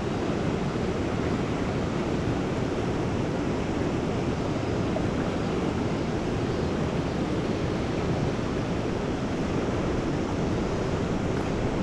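Steady rushing of a river's flowing current, a continuous even noise heavy in the low end, with no breaks.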